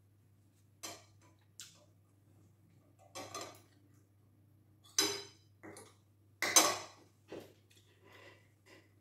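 Metal spoon and fork clinking and scraping against a plate while eating: a string of separate clinks and short scrapes, the loudest about five and six and a half seconds in, over a faint steady hum.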